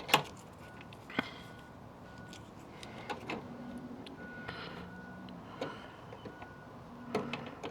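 Scattered light clicks and knocks of hands working on old gate latch hardware and its cable, with the sharpest click right at the start and another about a second in.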